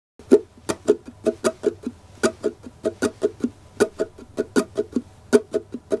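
Ukulele played as percussion: a rhythmic run of short, muted strokes, about four a second, each dying away at once with no ringing notes.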